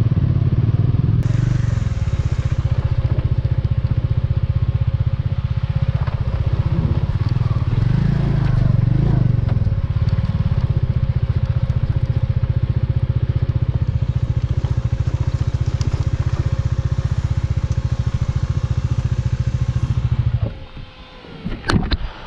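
Motorcycle engine running steadily under way. Near the end its sound falls away with a dropping tone as the engine cuts out, and a couple of sharp clicks follow.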